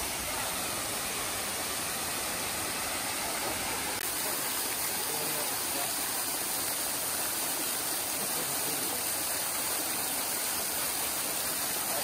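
Hot-spring waterfall pouring down into a river pool close by: a steady rushing splash of falling water.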